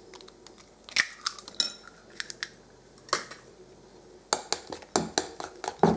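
A metal spoon clinking against a glass bowl. A few scattered clinks come first, then from about two-thirds in there are quick repeated clinks as an egg is stirred into the batter.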